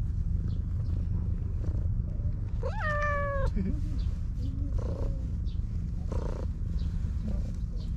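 A cat gives one affectionate 'nyaun' meow about three seconds in, rising at the start and then held level for about a second, over a steady low rumble.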